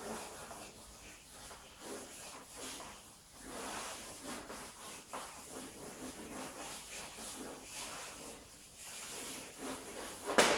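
A drawing stick scribbling fast looping strokes on paper taped to a flipchart board: a scratchy rubbing that comes in quick, uneven strokes. One sharp knock near the end.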